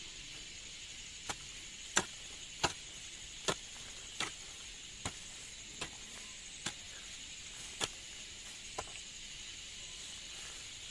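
About ten sharp chopping strikes of a hand tool, roughly one every three-quarters of a second, over a steady high-pitched insect drone.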